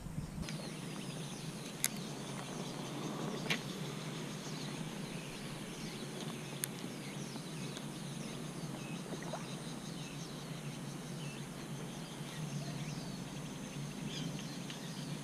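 Steady outdoor background noise by a pond, with many faint high chirps and three sharp clicks in the first seven seconds.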